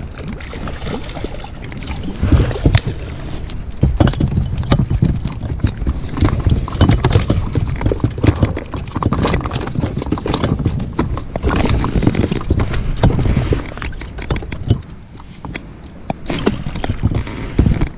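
Mackerel flapping and slapping on the floor of an inflatable boat, mixed with rustling and knocking as they are handled and unhooked from the feathers; irregular knocks throughout, easing off a little near the end.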